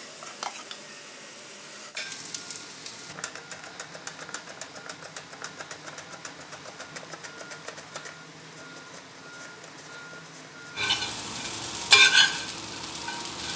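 Vegetable slices shallow-frying in oil in a cast-iron pan, a steady sizzle with many small crackles. Near the end a metal ladle stirs and scrapes the pan, louder.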